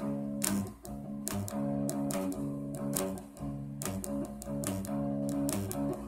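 Music: guitar strumming chords with a steady rhythm.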